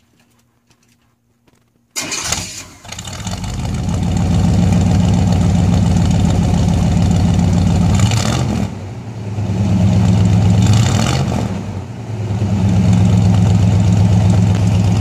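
1981 Chevy C10's 350 small-block V8 starting, heard at the tailpipe: it fires about two seconds in and settles into a loud, steady idle through its dual exhaust, dipping briefly twice.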